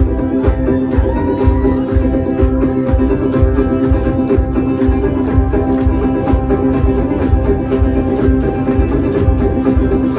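Live instrumental music with no singing: a steady low beat and a repeating high percussion pattern over held chords.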